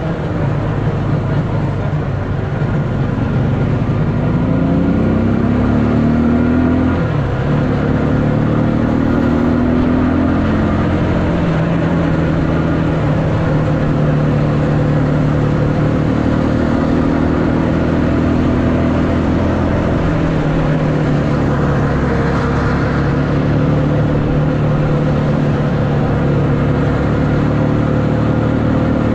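Home-built trike's 200 cc pushrod engine running under load while riding. Its pitch climbs for a few seconds, drops sharply about seven seconds in, then holds fairly steady with smaller shifts, over a haze of wind and tyre noise.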